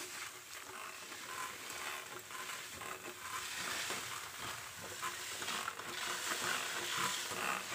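Steady hiss of a hose-fed spray wand misting liquid foliar fertilizer onto cacao leaves.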